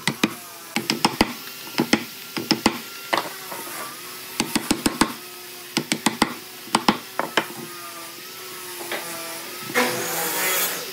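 A quick irregular series of sharp knocks and clicks, like wood and tools being handled in a workshop, over a faint wavering hum; a hissing noise builds up near the end.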